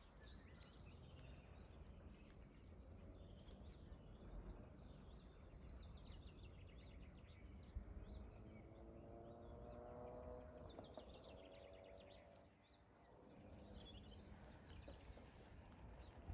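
Faint rural outdoor ambience: small birds chirping and twittering over a low rumble. A faint drawn-out pitched sound comes a little past the middle.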